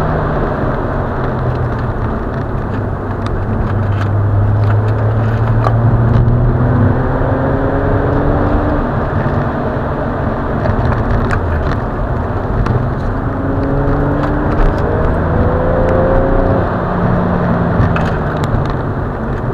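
Car engine and road noise heard from inside the cabin while driving at speed. The engine note rises in pitch twice as the car accelerates, with a few short clicks.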